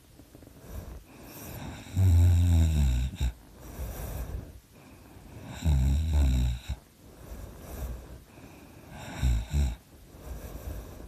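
A person snoring in sleep: three loud, low snores about three and a half seconds apart, the last one shorter and broken in two, with softer breathing between them.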